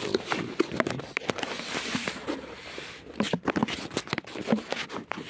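Clear plastic doll-packaging tray crackling and crinkling as it is handled and pulled free of its cardboard box, a dense run of sharp clicks and rustles.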